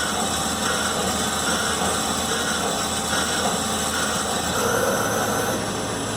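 Omniturn CNC lathe running steadily as it cuts the 8-32 thread on a screw, a continuous mechanical machining noise with a slight change in tone about four and a half seconds in.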